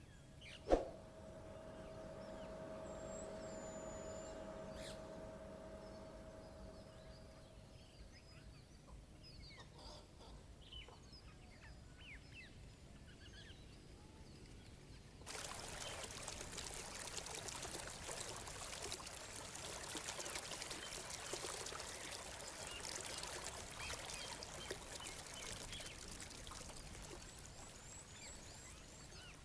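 A sharp ding about a second in that rings on as a fading chime for several seconds, with faint bird chirps. Then, just past halfway, a steady rush of water sets in suddenly and runs on.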